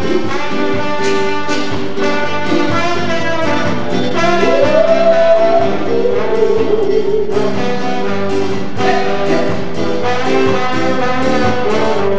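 Band music with horns carrying the tune, an instrumental passage without singing; a note slides up and is held about four and a half seconds in.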